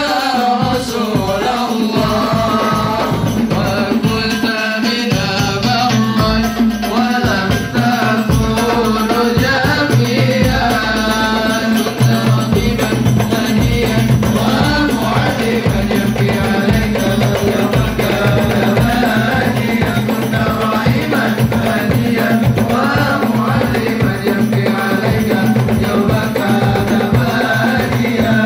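Sholawat sung by a male voice over a hadroh ensemble of hand-played frame drums (rebana) beating a dense, steady rhythm.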